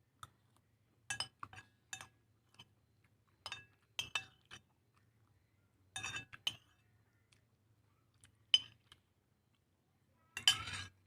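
Cutlery and dishware clinking, a dozen or so sharp ringing clinks at uneven intervals, ending in a short clatter near the end.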